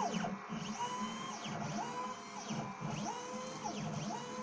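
Stepper motor driven by a CNC controller running a test program. Its whine repeatedly ramps up in pitch, holds a steady tone, then ramps down, about once every 0.7 s, as the motor accelerates through each move and decelerates.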